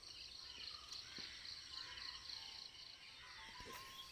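Faint insect chirping, a high steady pulsing trill of about five pulses a second, over quiet open-air background with a few short bird chirps.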